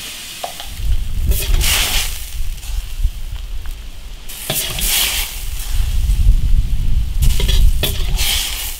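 Fish roe sizzling in a wok while a ladle scoops it out, with three louder swells of sizzling and a low rumble underneath.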